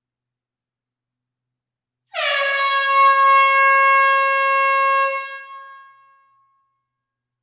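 A single long, loud horn blast of one steady pitch, like a truck air horn: it starts about two seconds in, with a slight drop in pitch at the onset, holds for about three seconds and then fades away over a second or so. There is silence on either side of it.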